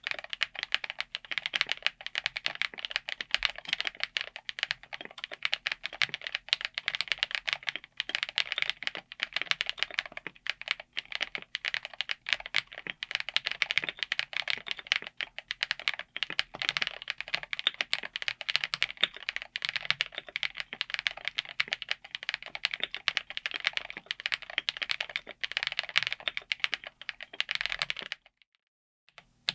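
Fast, continuous typing on a mechanical keyboard with Akko Creamy Yellow U1 lubed linear switches: a dense patter of keystrokes without any tactile or clicky sound, which stops abruptly near the end.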